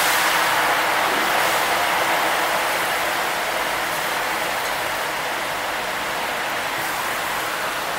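Chopped green herbs frying in hot oil in a large aluminium biryani pot, giving a loud, steady sizzle that eases slowly.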